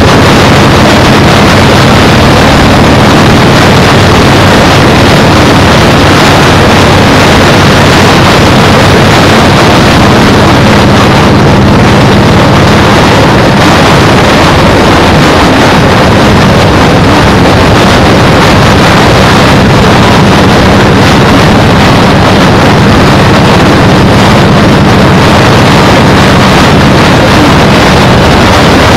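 Heavy wind buffeting on a GoPro's microphone, very loud and steady, over the even drone of a motorcycle engine at cruising speed.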